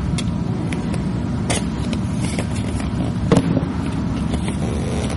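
A steady low rumble runs throughout, with a few short clicks and scrapes of a utility knife trimming vinyl camouflage film on an ATV's front plastics. The loudest click comes a little past halfway.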